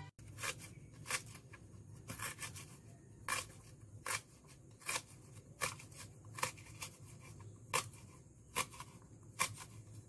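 Kitchen knife slicing lemongrass stalks on a plastic cutting board: a crisp tap with each cut, a little over one a second at an even pace.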